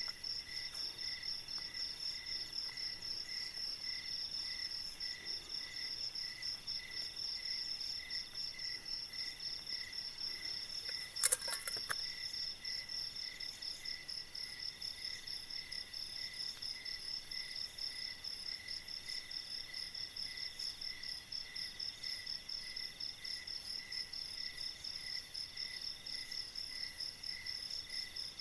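Night-time insect chorus, crickets calling in steady pulsing trills at a few different pitches, the lowest pulsing about twice a second. A single sharp click or knock about eleven seconds in.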